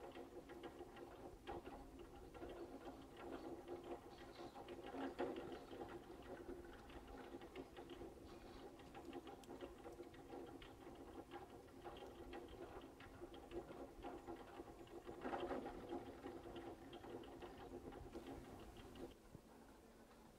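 Heuss T-bar lift's haul rope running over the tower's roller batteries: a faint, steady rapid rattling with a hum beneath, swelling twice, about five and fifteen seconds in.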